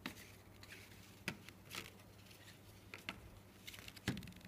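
Clear plastic blister pack with its card backing being handled: a string of crackles and sharp clicks from the stiff plastic as it is picked up and turned over, the loudest click about four seconds in.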